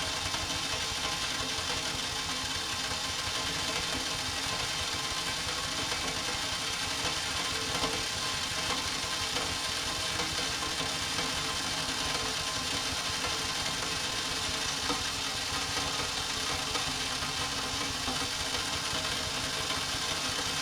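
A motor or engine running steadily at an even speed, with a fast, regular low pulse and no change in pitch.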